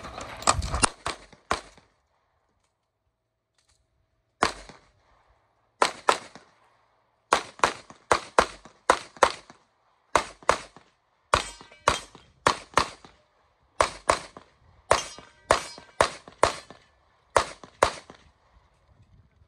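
Pistol shots fired rapidly, mostly in quick pairs and short strings, with pauses of a second or so between strings. After a brief burst at the start there is a silent gap of about two seconds.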